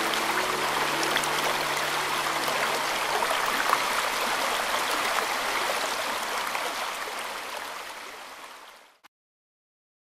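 A shallow mountain river babbling and gurgling, its flow beginning to rise in early spring, heard close up from within the stream. The babbling fades away and stops about nine seconds in.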